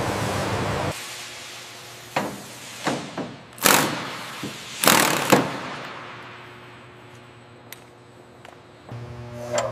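A steady machine hum cuts off about a second in. Then comes a run of short, sharp bursts and knocks from power tools working on a metal helicopter airframe, loudest about four and five seconds in. Another low machine hum starts near the end.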